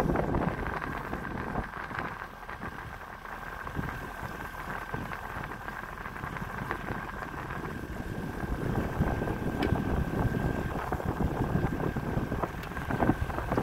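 Boat motor running under a steady high whine, with wind buffeting the microphone in uneven gusts.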